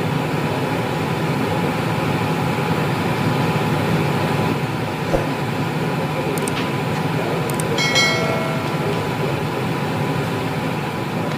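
Steady background hum and hiss like running machinery, with a single click about five seconds in and a short pitched tone about eight seconds in.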